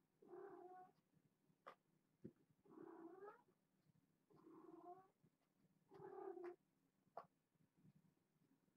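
A kitten yowling four times, each call long and drawn out, about two seconds apart, with a few light taps in between. The calls are those of a kitten calling out over a toy mouse it has caught.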